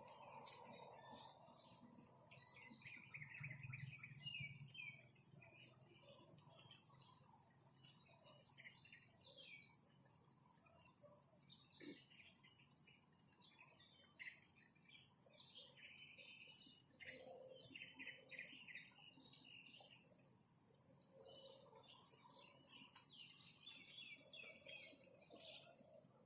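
Faint outdoor chorus of small birds chirping repeatedly, over insects trilling in a steady, evenly pulsing high drone.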